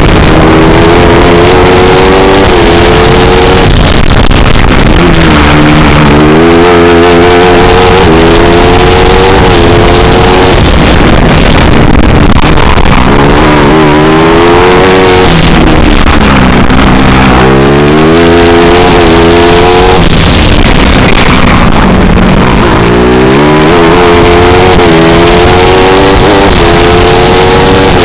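A 250 cc four-stroke kart engine, heard on board at full race pace, loud throughout. Its note climbs through the revs and drops sharply several times as the driver lifts and brakes for corners, then picks up again on the exits.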